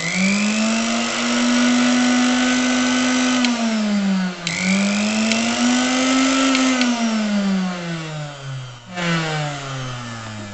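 A 750-watt mixer grinder's brushed motor, running bare with no jar, spins up to a loud high whine. About three and a half seconds in it is switched off and sags, then is switched back on with a click and picks up again. From about seven seconds it is switched off and winds down with a falling pitch; its carbon brushes spark lightly while it runs.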